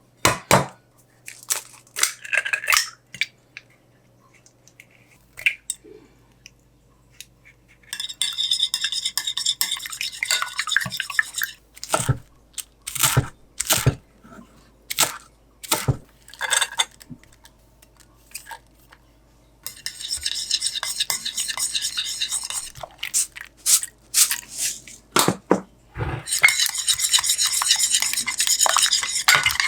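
Kitchen utensil working against a dish: three stretches of fast, rhythmic scraping, with single clinks and knocks between them.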